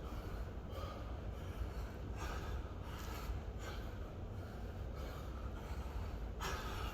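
A man breathing hard through repeated deep squats, with a soft noisy breath about once a second over a steady low hum.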